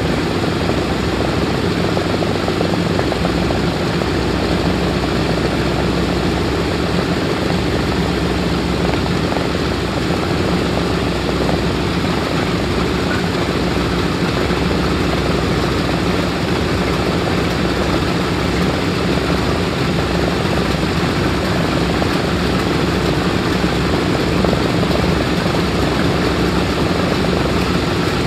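B-17 bomber's 1820 nine-cylinder radial piston engines running at idle during ground start-up: a loud, steady propeller drone. Another engine is brought up to speed partway through.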